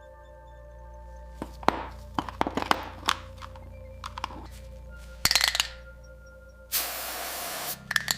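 Metal parts clinking and knocking against each other in a quick irregular run, over background music. Near the end there is a hiss lasting about a second.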